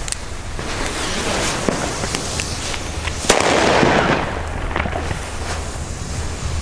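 Firecrackers going off all around: a steady crackle of scattered pops, with a sharper bang about three seconds in followed by a rumbling echo.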